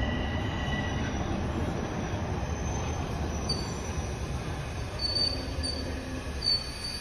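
Toronto Rocket subway train pulling into a station and slowing: a steady rumble that gradually eases off, with several short high-pitched squeals in the second half.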